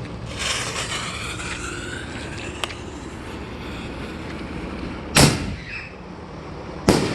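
Excalibur artillery shell firework: the lit fuse sizzles for about two seconds, then a deep thump as the shell lifts out of the mortar tube about five seconds in, and about a second and a half later a sharp bang as it bursts, followed by a hiss.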